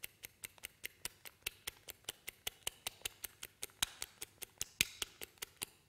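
Hand whisk beating egg white in a small ceramic bowl, its wires clicking against the bowl in a steady rhythm of about five strokes a second. The clicking stops just before the end.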